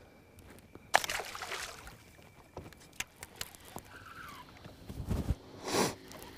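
Handling noises on a bass boat: a sudden rush of noise about a second in, a few sharp knocks, and a short whoosh near the end as a baitcasting rod is cast.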